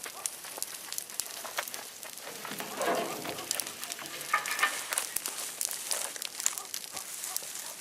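Large bonfire of broken tree branches crackling steadily, with frequent sharp pops and snaps over a soft hiss of flame.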